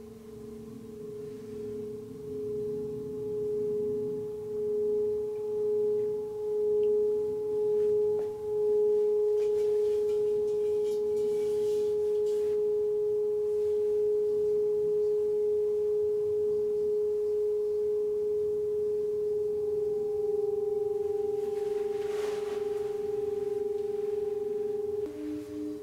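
A metal singing bowl rubbed around its rim with a wooden stick, singing one steady tone with a fainter higher overtone. The tone swells with a wavering beat over the first several seconds, then holds evenly. Near the end it gives way to a lower, pulsing tone.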